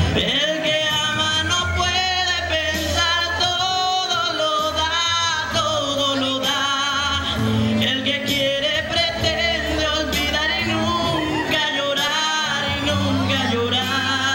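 A song played through a sound system: a man singing long, wavering notes over a steady bass line.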